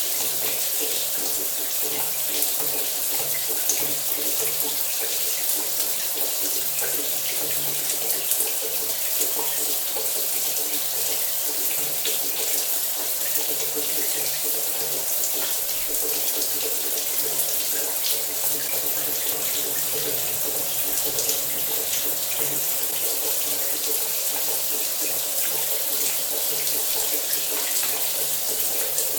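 Shower running steadily, water spraying and splashing in an even hiss that is strongest in the high range, with a faint low hum underneath.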